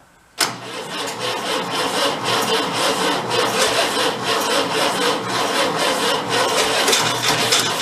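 Air-cooled Volkswagen flat-four engine in a homemade tractor comes in abruptly about half a second in, then runs steadily at a fast idle as a quick, even train of exhaust pulses. It has a noisy exhaust that the owner takes for a small exhaust leak, likely a hole in the manifold.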